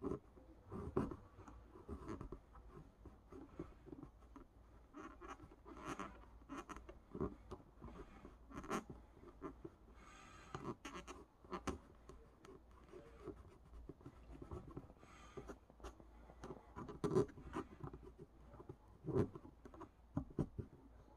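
Irregular scratching and scraping strokes of hand work on the bass neck's cured epoxy and wood, with occasional sharp clicks and knocks.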